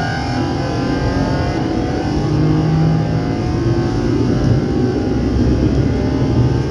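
Keio 8000 series electric train's VVVF inverter and traction motors heard from directly above the inverter while running. Several whining tones rise slowly in pitch as the train gathers speed, over a steady low rumble.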